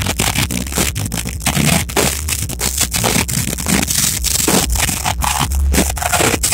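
Live rock band with singer playing loud, recorded through an overloaded phone microphone, so the music comes out as a harsh, crackling distortion broken by rapid dropouts.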